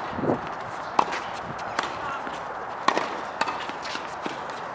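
Tennis ball struck by rackets in a rally: two sharp hits about two seconds apart, with fainter ball bounces between them, over steady outdoor court noise.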